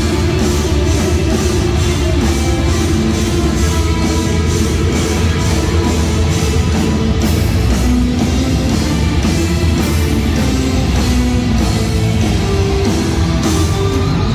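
Rock band playing live: loud electric guitar and bass over a drum kit keeping a steady beat.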